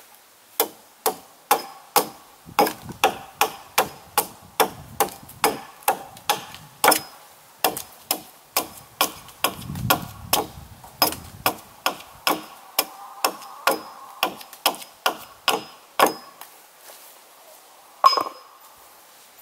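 A hatchet swung overhead strikes repeatedly at the joint of a round alder log beam, about two sharp blows a second with a faint metallic ring. The run of blows stops about three seconds before the end, followed by one harder single blow.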